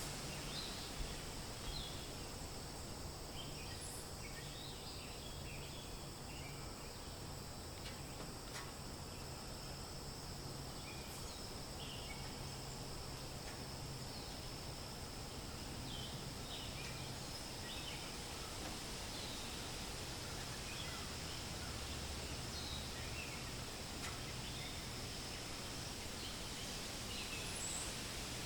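Forest ambience: a steady soft hiss with a continuous high-pitched drone, and many short, scattered bird chirps throughout.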